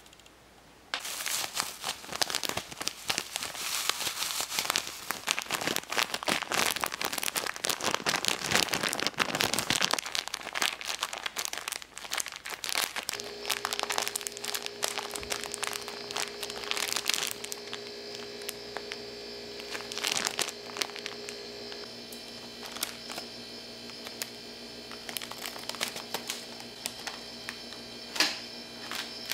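Thin plastic bag crinkling as hands squeeze and knead a pink candy mixture inside it. The crinkling is loud and dense for about the first eleven seconds, then softer and sparser.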